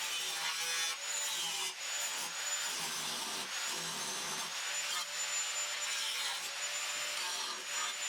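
Electric grinder working sheet steel for a frame patch panel: a steady high motor whine over a harsh grinding hiss, the whine sagging briefly a few times as the disc bites.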